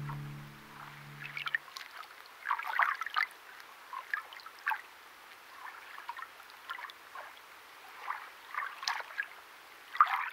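Music holding low notes stops about a second and a half in. It gives way to irregular small water splashes and sloshes, coming every second or so.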